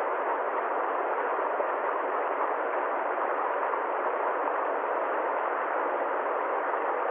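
Steady, unbroken rushing noise with no pitch, rhythm or changes, even throughout.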